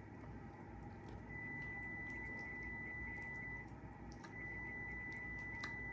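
Quiet tabletop eating sounds: a few faint clicks as a fork and fingers pull baked chicken apart on a plate. Over it runs a steady high-pitched whine that starts about a second in, drops out briefly in the middle and comes back.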